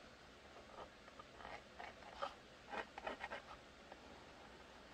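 Faint scratching of a white fabric marking pencil drawing short, irregular strokes on a molded Kydex holster shell as the trim line is marked.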